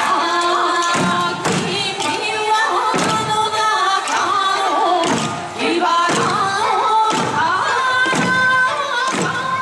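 Eisa music: an Okinawan folk song sung in a wavering melody, with the dancers' hand-held drums struck together in strong beats about once a second.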